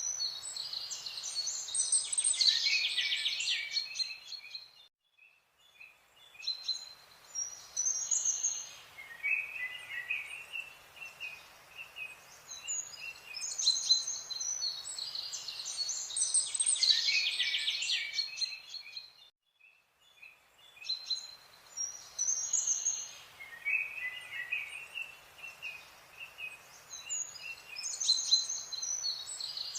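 Birds chirping and singing, many short calls overlapping, with brief breaks about five and twenty seconds in. The same stretch of birdsong repeats about every fourteen seconds.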